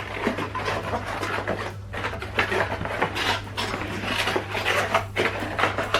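Unboxing handling noise: packaging and accessories being rustled and moved about by hand, with light irregular clatter. A steady low hum runs underneath.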